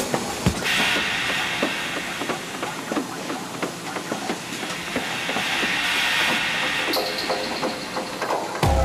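Book production machinery running: a steady mechanical hiss with a rapid, irregular run of small clicks, a little brighter from about a second in.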